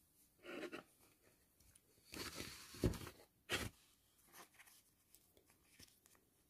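Faint rustling and handling of yarn and a crochet piece, with a longer scraping rustle around two to three seconds in and one sharp click-like stroke soon after.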